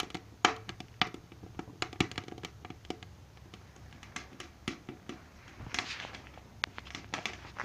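Firewood burning inside a popcorn-tin wood stove, crackling with irregular sharp pops.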